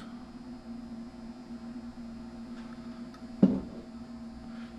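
Steady electrical mains hum, with a single brief knock about three and a half seconds in.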